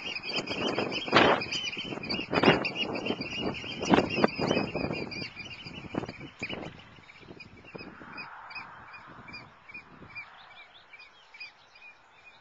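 A flock of oystercatchers giving rapid, high piping calls as they fly past, growing fainter toward the end. Gusts of wind buffet the microphone during the first half.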